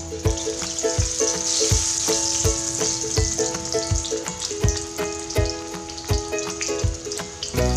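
Marinated fish pieces sizzling in hot oil in a pan. The sizzle swells for a couple of seconds, starting about a second and a half in, after a third piece is laid into the oil. Background music with a steady beat plays under it.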